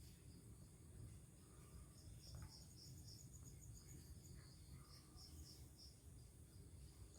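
Faint insect chirping, a high chirp repeated about three or four times a second, over a low background hum.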